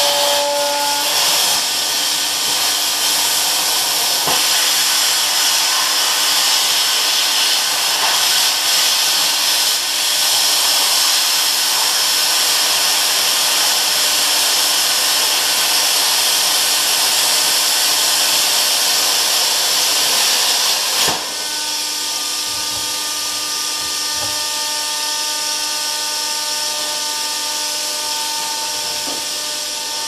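Plasma cutter cutting through the steel welds of a backhoe bracket: a loud, steady hiss of the arc and cutting air. About two-thirds of the way in the cut stops and the sound drops to a quieter air hiss with a steady howl from the compressed-air regulator as air keeps flowing through the torch.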